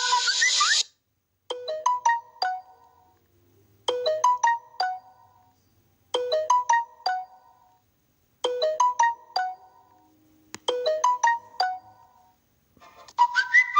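Electronic ringtone: a short melody of quick, crisp notes, about a second long, repeated about every two and a third seconds with a short pause between repeats. In the first second a different, noisier tone cuts off.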